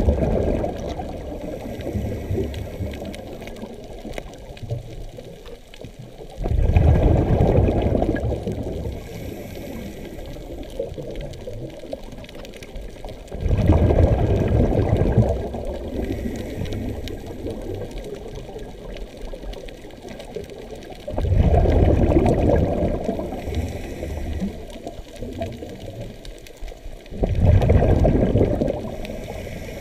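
Scuba diver breathing through a regulator underwater: a burst of exhaled bubbles about every seven seconds, each one starting suddenly and lasting a second or two, with quieter stretches between breaths.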